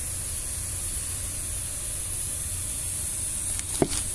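Steady hiss over a low hum, with a short knock near the end.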